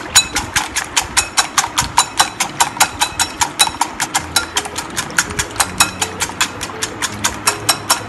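Background music carried by a fast, steady clicking percussion beat, about five strikes a second, over faint low notes.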